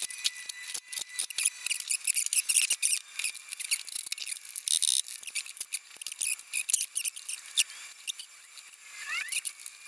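Tools and bolts clicking and rattling against metal as bolts are fitted back in a car's engine bay, with a brief whirr from a cordless power tool about five seconds in.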